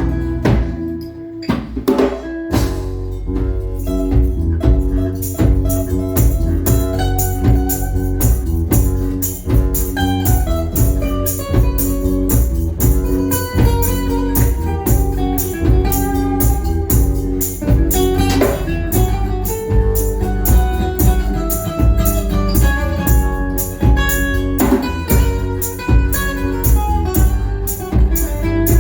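Live band playing an instrumental passage without vocals: a steady drum beat under held and moving instrument lines, with a short drop in level about a second in.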